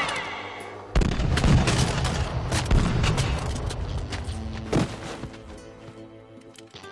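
Gunfight sound effects over background music: a sudden burst of rapid gunfire about a second in lasting a couple of seconds, then one more sharp shot about two-thirds of the way through before it fades back to the music.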